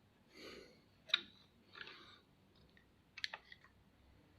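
Small clicks of a screwdriver and metal parts being handled while the screws of a Singer sewing machine's shuttle carriage are undone: a single sharp click about a second in and a quick cluster of clicks near three seconds, with soft rustling between.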